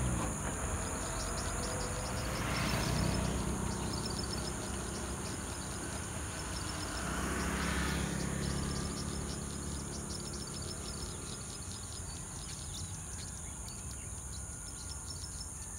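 Outdoor ambience with a low rumble like distant road traffic, swelling twice and then fading. Over it run a steady high-pitched insect drone and repeated runs of quick, high ticking notes.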